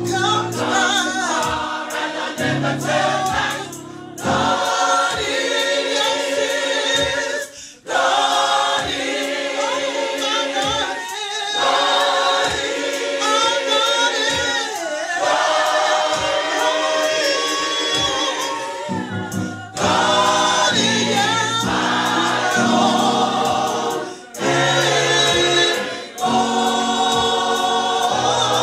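Gospel church choir singing in harmony, several voice parts together, in phrases with brief breaths between them.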